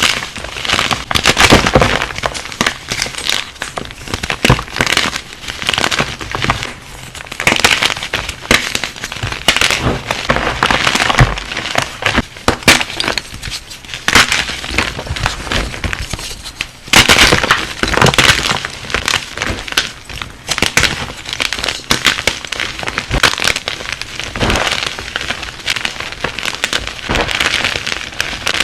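Brittle material being crushed for ASMR: dense crunching and cracking, with louder snapping crunches every second or two.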